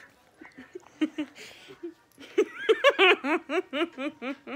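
A young woman laughing: soft giggles at first, then from about halfway a louder run of rapid, rhythmic laughs.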